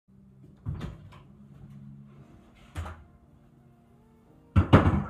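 Hard knocks from a stunt scooter being carried in and handled: a single knock twice, then a loud clatter of several knocks near the end as the scooter is brought down onto a wooden table.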